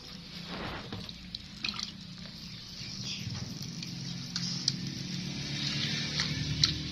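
Water splashing and dripping in a plastic basin as hands wash a baby monkey, with scattered small splashes and drips, more of them in the second half.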